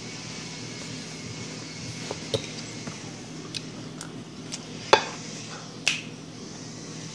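Metal fork clinking against a plate and teeth while eating, a handful of sharp clinks in the second half, the loudest two about five and six seconds in, over a steady low hum.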